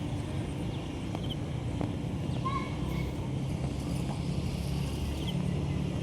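Outdoor ambience: a steady low rumble with a few short bird chirps.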